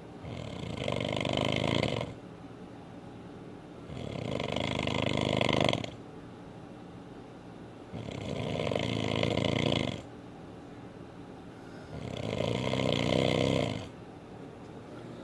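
A man snoring very loudly in his sleep: four long, rattling snores about four seconds apart, each building over about two seconds and then cutting off sharply.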